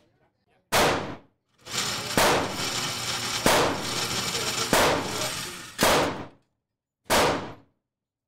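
Handgun shots, six in a row, each a sharp crack with a short decaying tail, about one to one and a half seconds apart.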